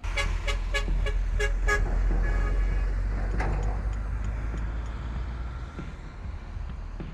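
Road traffic heard from a moving motorbike: a steady low engine-and-wind rumble, with a quick run of short horn toots in the first two seconds.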